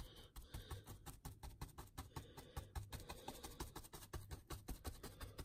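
Brush dabbing thick mud-texture paste onto a diorama base: a quick, uneven run of faint soft taps and clicks, several a second.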